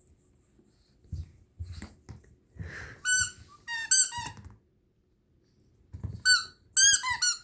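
Squeaker in a plush dog toy squeaking as a spitz puppy chews it: a few high squeaks about three to four seconds in and a quick run of them near the end, with soft rustling and knocks in between.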